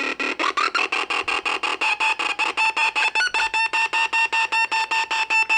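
Electronic beeping from a speaker driven by three cascaded 555 timer circuits, each timer gating the next through its reset pin. The tone chops on and off about eight times a second, and its pitch shifts about half a second in and again around three seconds in.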